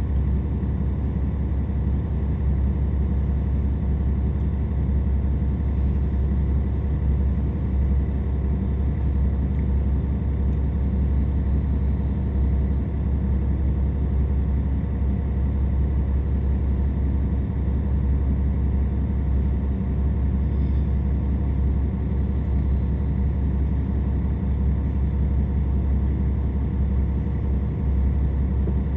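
KiHa 47 diesel railcar's engine running steadily, a constant low hum with no revving, heard from inside the passenger car.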